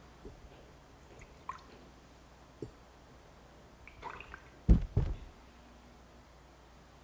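Objects handled and set down near a microphone: scattered light clicks and knocks, then two heavy low thumps close together about five seconds in.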